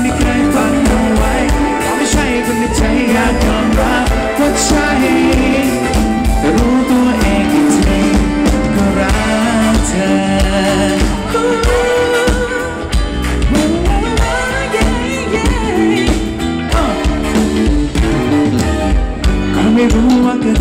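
Live pop band playing: electric guitar, keyboard and drums, with the lead singer's voice over them.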